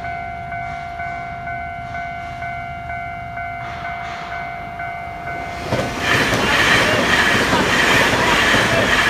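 Level-crossing warning bell ringing about twice a second. About six seconds in, a Puyuma express train (TEMU2000 tilting EMU) starts passing through the crossing, its loud running noise drowning out the bell.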